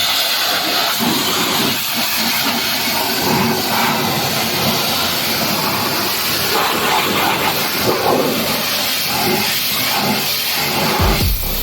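Pressure washer jet spraying water, a steady loud hiss.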